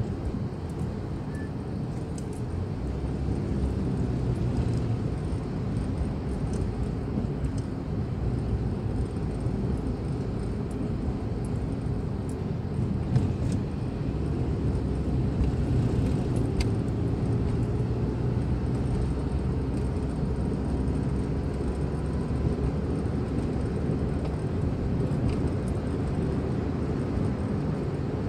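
Steady low rumble of a car's engine and tyres heard from inside the cabin while driving, swelling a little a few seconds in, with a few faint clicks.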